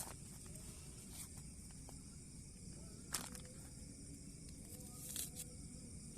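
Faint outdoor ambience: a steady high insect drone with a few scattered light clicks and rustles.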